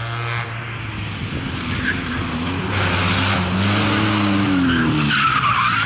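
Small rally car's engine revving hard as it approaches and passes at speed, its pitch rising and then falling, with a brief tyre squeal near the end.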